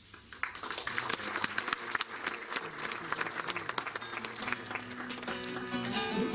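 Audience applauding, with a plucked string instrument starting a melody about four and a half seconds in.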